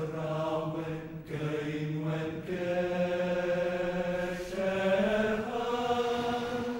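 Background music of slow sung chant, with voices holding long notes that shift pitch every second or two.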